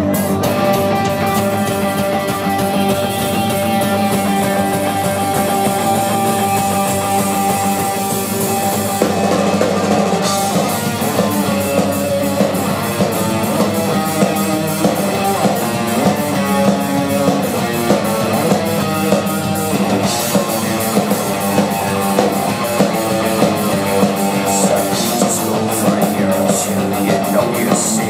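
Live metal band playing an instrumental intro on distorted electric guitars and drums. Sustained guitar notes open it, and about ten seconds in a busier, rhythmic riff with full drums takes over.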